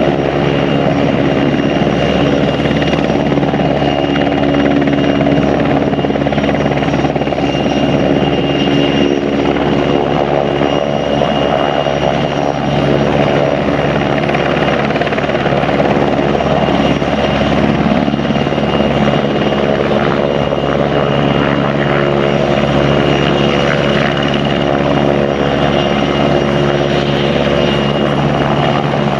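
PZL W-3A Sokol helicopter hovering overhead, its twin turboshaft engines and rotor running in a loud, steady drone with a thin high turbine whine above it.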